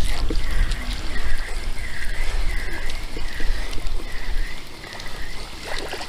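Wind rumbling on the microphone. Above it, a faint high squeak or chirp repeats about every 0.7 s.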